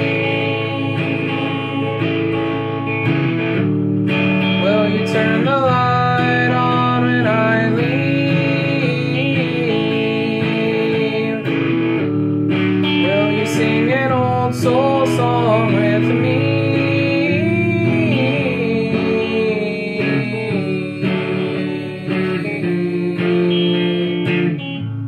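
Electric guitar played alone in an instrumental passage, chords ringing steadily with a melody line that bends and wavers above them. It gets a little quieter toward the end.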